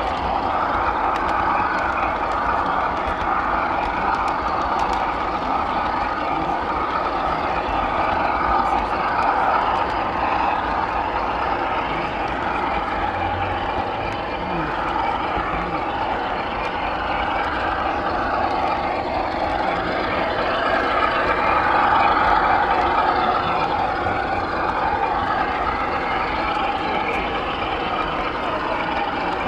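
Garden-scale model locomotive running along the track, heard from a camera on its roof: a steady mechanical whirr of its motor, gearing and wheels on the rails.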